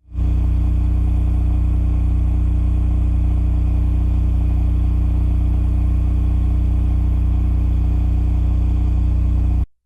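Cummins RS20A standby generator running steadily under load at 3,600 RPM, heard from 7 meters: an even, loud low hum made of a stack of engine tones. It starts abruptly and cuts off just before the end.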